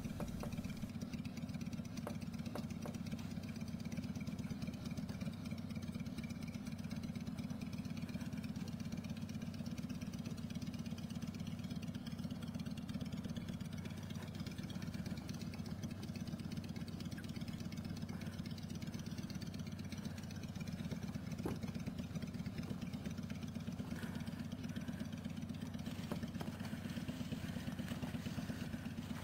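A steady low mechanical drone, like a motor running, under faint rubbing of a cloth on a chrome exhaust pipe being polished by hand.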